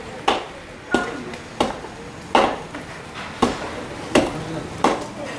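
Hand tamper pounding a fresh asphalt pothole patch to compact it, a steady series of blows about one every two-thirds of a second.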